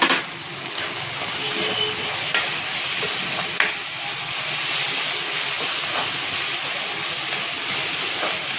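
Sliced onions with salt and turmeric sizzling in hot oil in a pan, a steady frying hiss. A few sharp clicks, like a spoon striking the pan, the loudest at the very start and another about three and a half seconds in.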